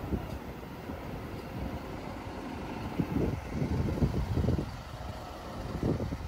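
Highway coach driving slowly past and pulling away, a low engine and tyre rumble that swells louder about three seconds in and again near the end.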